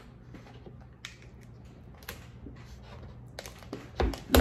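Cooked lobster shell crackling and clicking as a large claw is twisted and pulled from the body by hand, with two sharp, loud cracks near the end as it breaks loose.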